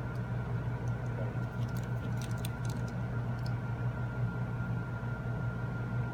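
A few light, sharp clicks of tiny screws and a small screwdriver being handled while the back plate of an iPhone 6 replacement screen is screwed on, clustered in the second and third seconds. Under them runs a steady electrical hum with a faint high whine.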